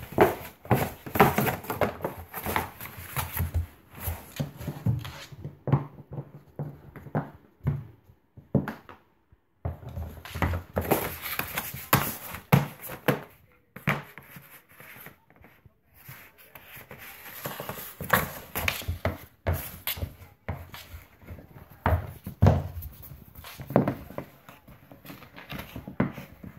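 German Shepherd puppy playing with and chewing a flip-flop on a hard floor and a cardboard box: irregular knocks, scuffs and cardboard rustling, quieter for a couple of stretches.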